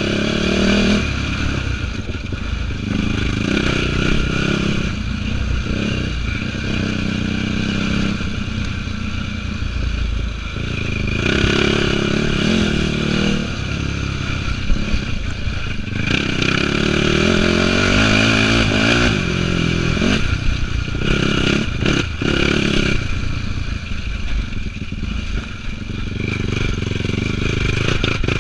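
2004 Yamaha YFZ450 quad's single-cylinder four-stroke engine running hard under load, its pitch rising and falling as the throttle is worked, with the chassis clattering over the dirt trail, heard close from a camera on the handlebars.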